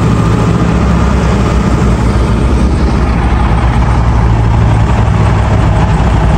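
A large engine running steadily with a low, even hum.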